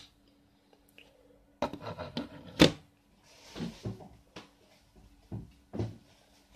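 Handling noise of a phone held close to the microphone: a sudden cluster of knocks and rubbing about a second and a half in, the loudest knock a moment later, then a brief rustle and a few scattered thumps as a person moves about.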